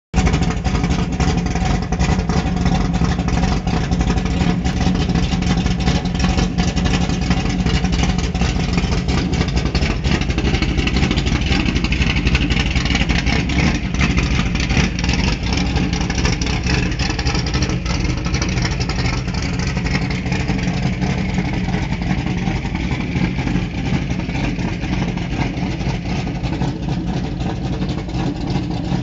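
1973 Ford Maverick's 306 cubic-inch small-block V8 running steadily, with the little noise its owner is showing off. The level eases slightly toward the end.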